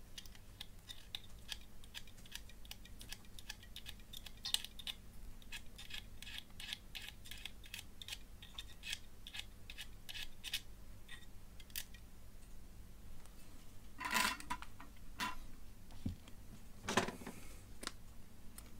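Snap-off utility knife blade scraping a small metal part of an LED torch clean, in short, quick, scratchy strokes a few times a second. The scraping stops about two-thirds of the way through, and two louder clatters follow as the parts and knife are handled and put down.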